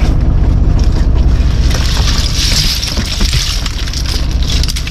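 A fishing boat's engine runs with a steady low hum. From about two seconds in there is a hissing rush with scattered clicks as wet catch (starfish, seaweed, fish) and seawater fall from the hauled drift net onto the sorting tray.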